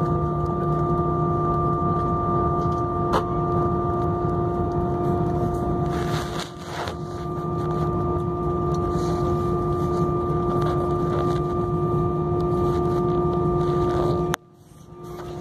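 Aeroplane drone: a steady hum with several held tones over a low rumble. It dips briefly about six and a half seconds in, then cuts out abruptly near the end and comes back up.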